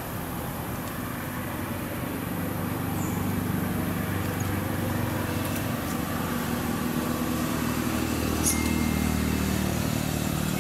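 A motor vehicle engine running steadily, its low hum drifting slightly in pitch, with a short click about eight seconds in.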